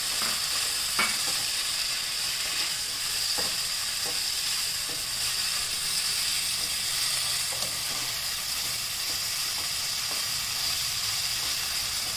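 Chopped vegetables sizzling in oil in a pan while a wooden spatula stirs them, a steady frying hiss with a few soft taps and scrapes of the spatula, the clearest about a second in.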